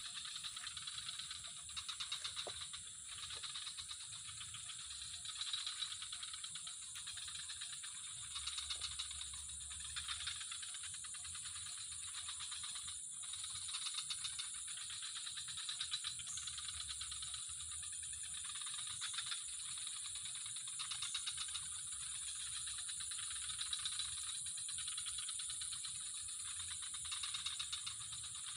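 A continuous, fast rattling trill of dense clicks that swells and eases every couple of seconds.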